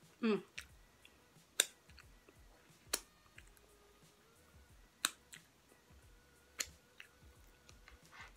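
Close-up eating sounds of someone chewing barbecue rib meat: a few sharp, wet mouth clicks and lip smacks a second or more apart, with a short falling squeak right at the start.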